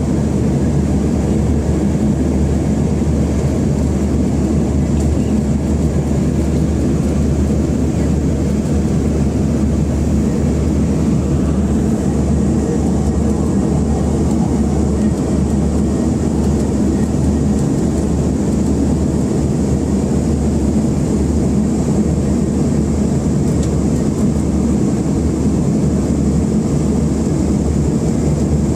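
Steady cabin noise inside an airliner descending to land: a constant low rumble of engines and rushing air, with a faint high whine above it.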